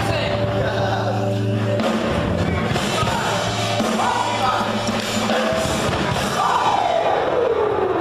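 Rock music with electric guitar: held low notes, and in the last couple of seconds a long note sliding down in pitch.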